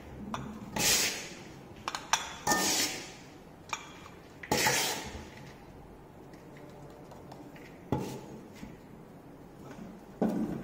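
Cement paste being scooped and scraped into a Vicat mould against the sides of a metal mixing pan: about five short gritty scrapes, with a quieter spell in the middle.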